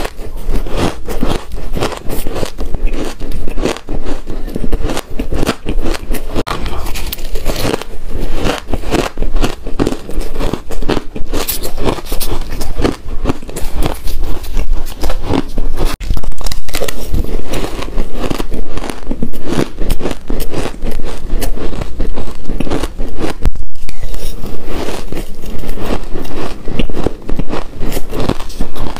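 Close-up crunching of frosty blue ice chunks bitten and chewed in the mouth: a dense, rapid run of crisp crackles and crunches.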